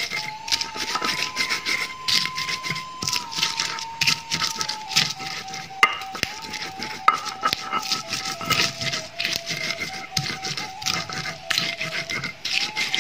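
A hand-held grinding stone rubs and crushes shallots and chilies into spice paste on a flat stone grinding slab (batu giling), in quick back-and-forth scraping strokes. Behind it, a faint held tone slowly steps down in pitch.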